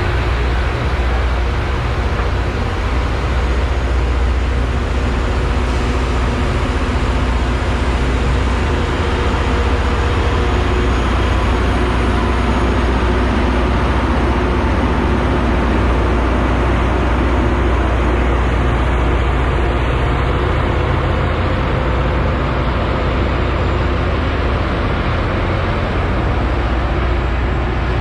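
Loram rail grinder passing with its grinding stones working the rail: a loud, steady grinding noise over a deep engine hum.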